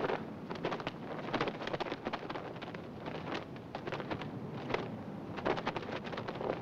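Wind blowing, with a cloth flag flapping and snapping irregularly.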